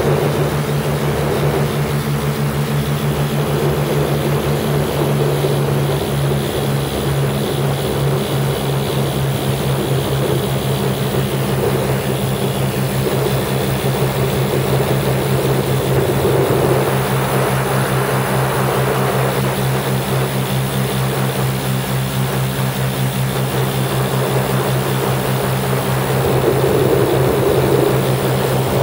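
A Lazair ultralight's twin engines and propellers drone steadily in cruise flight, heard from the open cockpit with air rushing over the microphone. The rush swells briefly about halfway through and again near the end.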